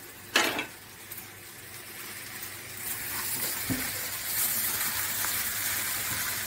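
Vegetable cutlet filling of grated carrot, potato, peas and capsicum sizzling as it is stir-fried in a frying pan over a gas flame, a spatula stirring and scraping through it. A short loud scrape about half a second in; the sizzle grows louder from about three seconds in.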